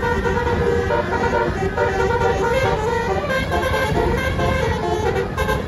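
Basuri telolet bus horn playing a quick tune of short, pitched air-horn notes, over a steady low rumble.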